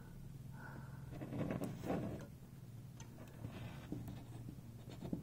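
Faint handling noise: soft rustles and a few light clicks over a low steady hum.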